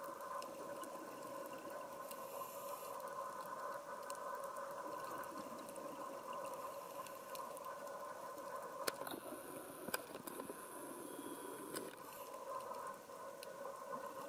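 Underwater ambience on a coral reef: a steady hum with faint, scattered crackling clicks, and two sharper clicks around nine and ten seconds in.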